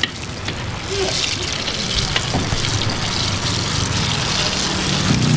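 Battered banana fritters deep-frying in hot oil in a wok: a steady, crackly sizzle, with a low hum underneath.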